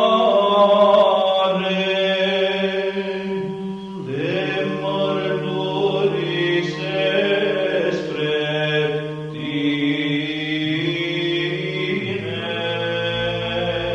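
Background music of slow chanting voices over a steady held drone, the sung notes changing about four seconds in and again near the end.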